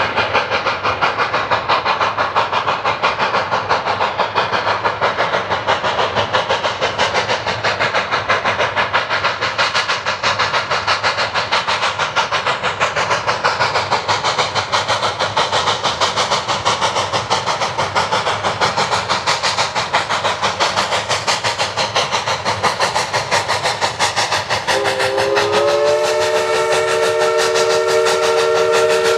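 Narrow-gauge steam locomotive working hard as it approaches, its exhaust beating in a rapid, even rhythm. Near the end its chime steam whistle sounds: a held chord of several notes that keeps sounding.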